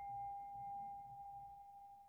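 A singing bowl ringing out with one clear, steady tone that slowly fades.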